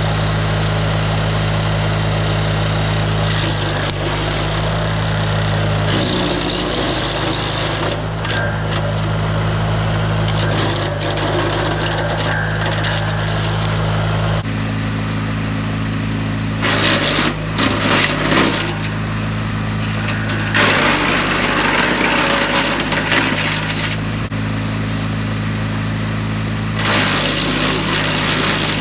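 DR wood chipper's gas engine running steadily, with several stretches of loud grinding and crackling as branches are fed through its newly replaced, sharp blades; the engine pitch dips briefly under the load.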